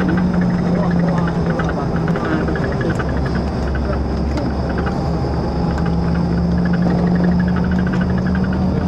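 Steady vehicle engine drone with a held low hum, under faint background chatter.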